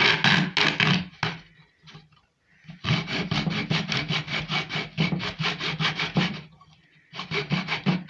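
A bare hacksaw blade sawing through white PVC wiring duct set in a wooden cutting guide, in quick back-and-forth strokes of about five a second. The sawing comes in three runs, with a pause about a second in and a shorter one near the end.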